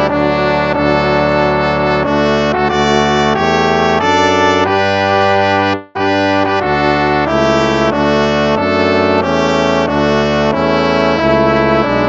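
Instrumental hymn played in slow sustained chords with a brass-like tone, breaking off for a moment about six seconds in before the next phrase begins.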